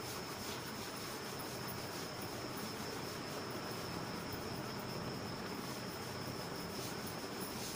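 A blackboard duster rubbing chalk off a chalkboard in short strokes, faint under a steady high-pitched trill and hiss.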